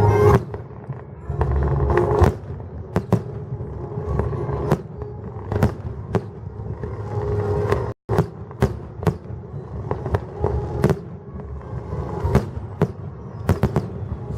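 Fireworks going off: a long run of sharp bangs and crackles at irregular intervals over a low rumble, with the sound cutting out for an instant about halfway through.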